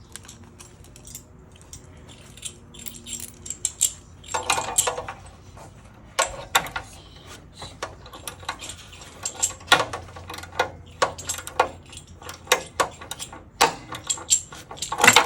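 Metal hand tools clicking and clinking irregularly as an oxygen sensor socket and wrench are worked on an exhaust O2 sensor, with a few louder metallic clatters and the loudest one near the end.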